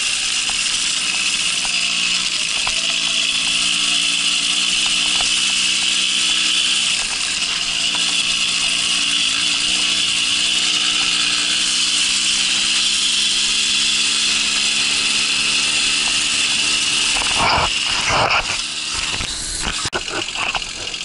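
Babetta moped's small two-stroke single-cylinder engine running steadily under way, with a high whine over it. About three-quarters of the way through, the steady note breaks into irregular knocks and rustling.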